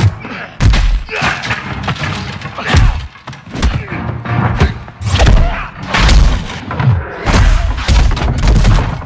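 Fight-scene punch and body-impact effects: a quick run of about a dozen heavy thuds and whacks as two men trade blows and crash into sacks.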